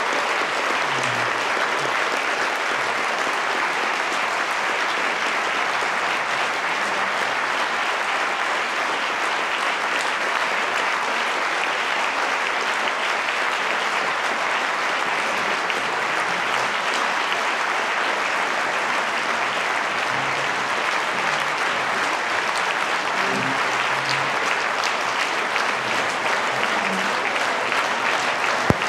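Large audience applauding, a dense, steady clapping that holds at one level throughout. Near the end comes a single sharp click.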